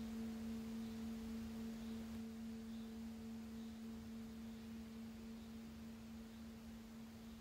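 A low, steady pure tone with faint overtones, slowly fading away.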